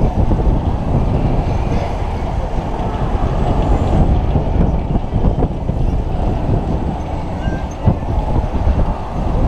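Wind buffeting the microphone of a rider swinging out on a giant chain swing ride at speed, a steady loud rumble. There is a single knock a little before the end.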